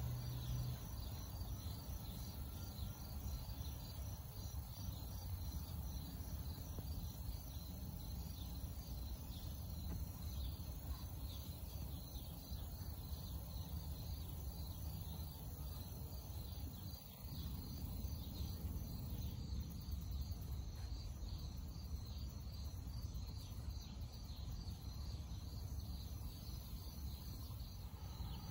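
Steady chorus of chirping insects, an even, rapid pulsing, over a low rumble.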